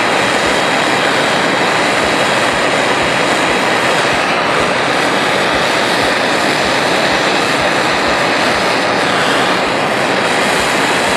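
Propane torch flame burning with a loud, steady hiss, heating a brass-tube-to-steel joint to draw the silver solder around it.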